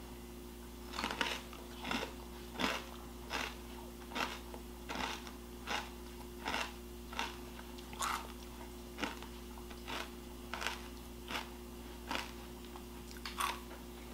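Close-up mouth sounds of someone chewing a spoonful of parfait with crisp corn flakes. Steady, regular crunching, about four chews every three seconds, starting about a second in.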